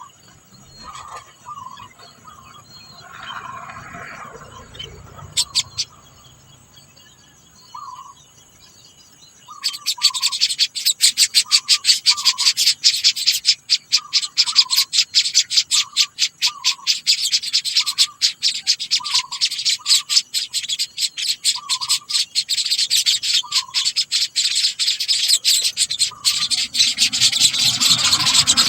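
Short bird chirps repeating roughly once a second. About ten seconds in, a loud, raspy, fast-pulsing hiss starts and becomes the loudest sound.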